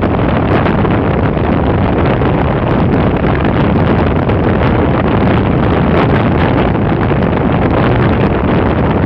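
Wind buffeting the microphone over the running engine of a 1981 Yamaha Seca XJ550 inline-four motorcycle, riding on a rough dirt road, with many small knocks and rattles.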